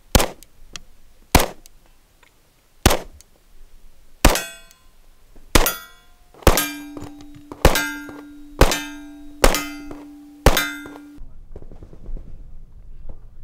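Glock pistol fired about ten times at a steady pace of roughly one shot a second, with steel targets clanging and ringing after the later shots. A steady ringing tone holds under the last several shots and cuts off suddenly near the end, leaving only a faint low rumble.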